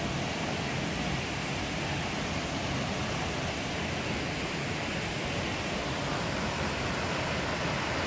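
Steady roar of a waterfall: an even rush of falling water, unbroken throughout.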